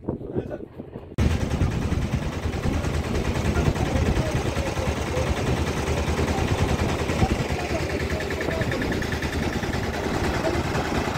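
Small engine of a motorised rail trolley running steadily, starting suddenly about a second in, with people talking in the background.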